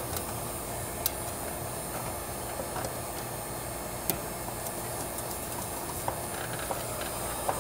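A few sharp metallic clicks and taps from a hand tool and wire being worked at a terminal in an air-conditioner condenser's wiring compartment, over a steady low hum. The loudest click comes about four seconds in.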